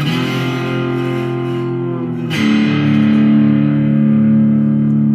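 Music: guitar chords ringing out, with a new chord struck a little over two seconds in and left to sustain.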